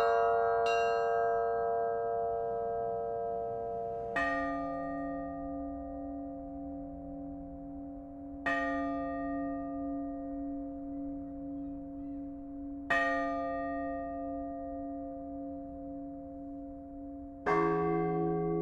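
Russian church bells ringing. A chord of smaller bells dies away, then a deeper bell is struck about every four seconds, each stroke ringing on and fading, and near the end a still lower bell sounds with it.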